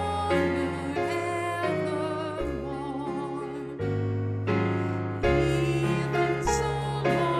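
Slow church music: sustained keyboard chords that change about every second or so, with a wavering melody line above them in the middle.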